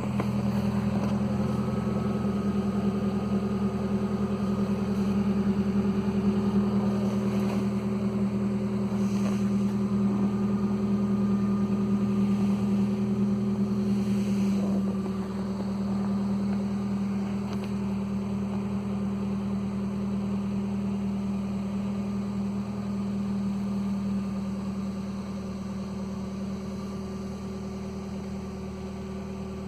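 2015 Nissan Versa's four-cylinder engine idling with a loud, steady exhaust drone from underneath the car, the sign of an exhaust leak where the pipe has rusted through just after the muffler flange. It runs louder at first and drops to a lower level about halfway through.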